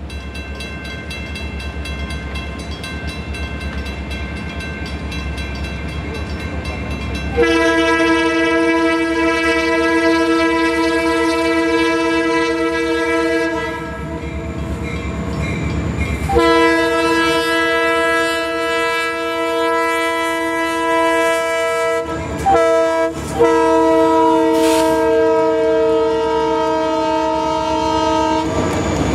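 Diesel freight locomotive's horn blowing the grade-crossing signal (long, long, short, long) as a multi-note chord, over the rumble of the locomotive and its wheels on the rails. The first long blast starts about a quarter of the way in.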